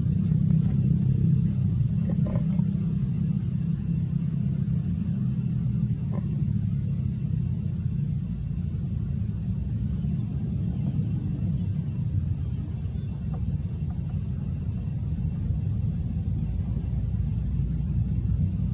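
Steady low outdoor rumble with a faint, thin high whine over it and a few faint ticks.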